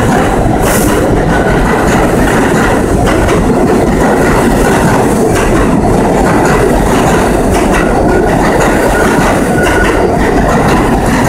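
New York City subway train running past the platform at speed: a steady loud rumble of steel wheels on rail, with clickety-clack over the rail joints.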